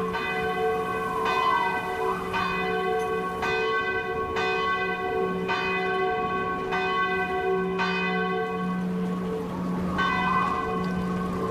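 Church bells tolling, a new strike roughly once a second with long humming tones sustained between strikes; the strikes pause briefly near the end before resuming.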